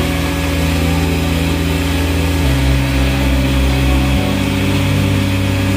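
Wet/dry shop vacuum running steadily, sucking oily sludge and water out of a boat's bilge through its hose.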